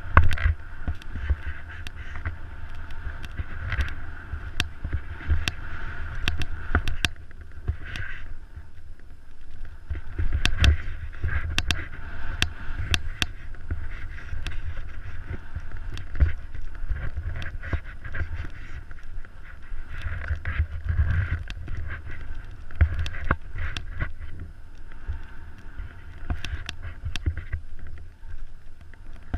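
Skiing through deep powder heard on a body-worn camera: a steady low rumble of wind buffeting the microphone over the hiss of skis through snow, with frequent sharp clicks and knocks from skis and poles.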